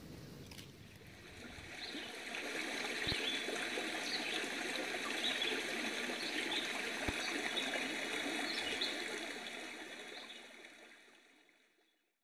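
Running water of a stream or small waterfall, a steady rush and trickle that fades in over the first couple of seconds and fades out near the end.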